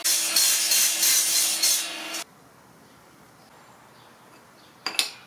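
DeWalt sliding compound miter saw running and cutting wood, the cutting noise pulsing about three times a second over a steady motor hum; it cuts off suddenly about two seconds in. After a quiet stretch comes a single sharp metallic clink near the end.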